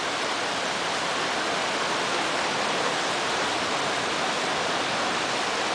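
Rushing water of a mountain river's whitewater rapids, a steady, even rush with no breaks.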